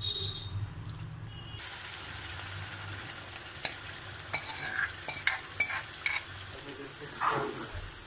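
Spice masala sizzling in a hot steel pan. The sizzle jumps up sharply about a second and a half in as water goes in. Then a steel ladle clinks and scrapes against the pan and pot several times while boiled black chickpeas are tipped in and stirred.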